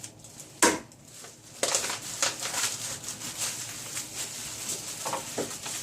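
Plastic packaging being torn open and crinkled: one sharp crack about half a second in, then continuous crackling rustle of the plastic from a little after one second on.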